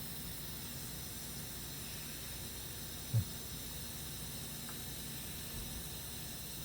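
Steady background hiss, with one brief low sound about three seconds in.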